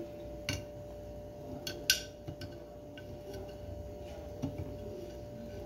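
Light kitchen clatter: a few sharp clicks and knocks of utensils and a container, the loudest about two seconds in, over a faint steady hum, as salt is fetched and added to onions frying in a pan.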